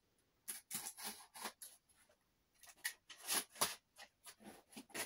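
Blade cutting through the packing tape of a cardboard box and the flaps being pulled open: an irregular run of short scraping and tearing rasps, busiest about a third of the way through and again past the middle.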